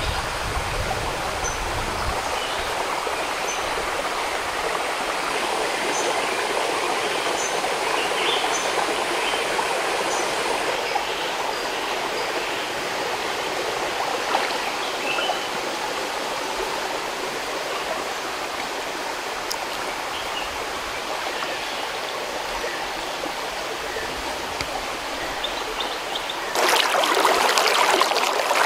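Shallow, clear stream running steadily over pebbles and stones. About 26 seconds in it becomes louder and brighter: water rushing close by around boulders.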